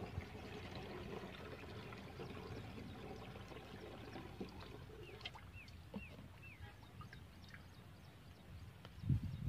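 Water poured from a bucket into a plastic backpack sprayer tank: a faint, steady pouring and trickling. A few short high chirps sound about halfway through, and louder knocks come right at the end.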